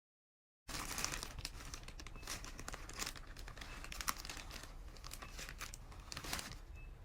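Takeaway sushi packaging being unwrapped and opened: continuous crinkling and rustling with many small clicks, starting just under a second in.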